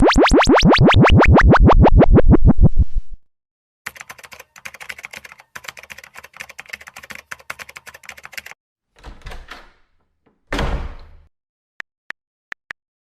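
A run of separate editing sound effects: a loud rapid-fire string of rising chirps for about three seconds, then a stretch of irregular clicking, two short swooshing bursts, and near the end a few sharp high-pitched ticks.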